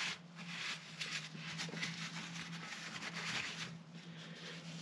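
Faint rustle and rub of a cloth rag wiping an oily metal engine part, in short irregular strokes, over a steady low hum.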